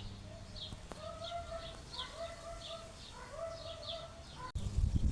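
Small birds chirping rapidly in a steady repeated series, about three short high chirps a second, while another bird gives several longer, lower drawn-out calls. About four and a half seconds in, a loud low rumble cuts in.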